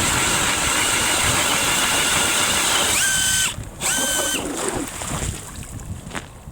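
Cordless drill spinning an Eskimo pistol bit ice auger through lake ice with a steady whine. The pitch rises near three seconds in and the drill stops half a second later. One short second spin follows, then it stops.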